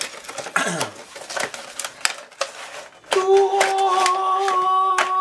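Cardboard box and plastic packaging clicking and crackling as a microphone box is opened and its plastic tray slid out. About three seconds in, a voice joins with one long held, sung note while the handling clicks go on.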